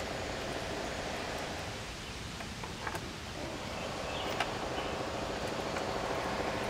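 Steady outdoor background noise with a faint hum, and a few faint clicks around three and four and a half seconds in.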